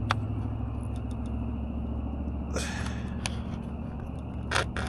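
A steady low motor hum, with a few light clicks and brief scrapes as a 3D-printed plastic downspout adapter is worked into the end of a metal greenhouse gutter.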